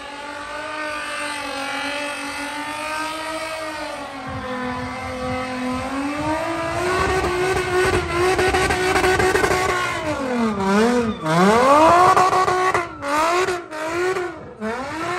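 A car engine held at high revs during a tyre-smoking burnout, its pitch wavering as the throttle is worked, over the hiss of spinning tyres. In the last few seconds the revs drop sharply and climb again several times as the throttle is lifted and stabbed.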